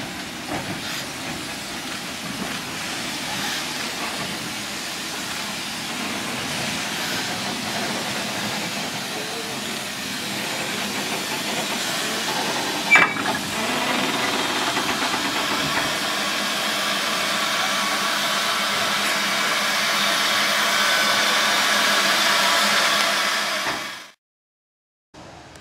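Steam locomotive hissing with escaping steam, the hiss growing steadily louder, with a single sharp clank about halfway through. The sound cuts off suddenly near the end.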